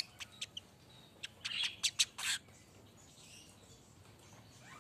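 Weaver bird (manyar) giving a quick run of short sharp chips and clicks in the first two seconds or so, then a few faint high calls.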